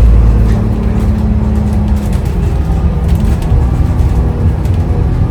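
Vehicle in motion: a steady low engine rumble with road noise, its deepest drone easing off slightly about half a second in.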